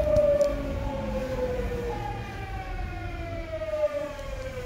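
Tokyu 9000 series electric train's VVVF inverter and traction motors whining, several tones falling steadily in pitch over the rumble of the running gear, as the train slows under braking. A new falling tone takes over about two seconds in.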